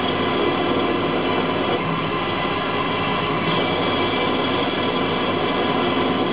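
EMCO Turn 120 CNC lathe running under power, turning a metal part: a steady mechanical hum carrying several steady whining tones from the spindle and drives.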